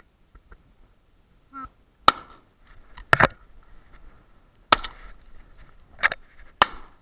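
Shotgun shots at ducks: about five loud, sharp reports over roughly four and a half seconds, the first about two seconds in.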